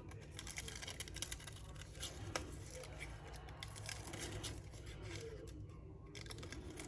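Scissors cutting paper, trimming off excess: faint, irregular snips with small clicks.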